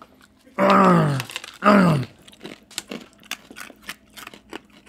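Two drawn-out vocal sounds, each falling in pitch, then a string of sharp crunches as dry dog food kibble is chewed.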